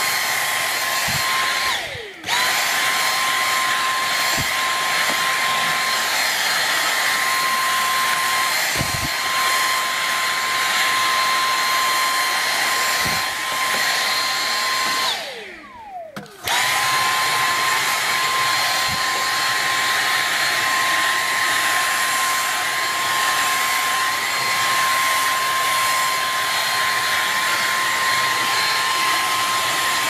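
Dyson V6 cordless stick vacuum running with a steady high whine over the rush of suction. It stops briefly about two seconds in and again for over a second around halfway. Each time the whine falls as the motor winds down, then the vacuum starts up again.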